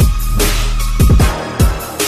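Electronic background music with a deep bass and heavy, pitch-dropping drum hits.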